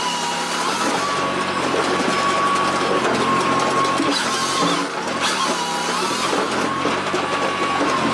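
Firewood processor running steadily: its engine hum under a high, even whine that dips briefly in pitch twice as the machine takes load cutting and splitting the log.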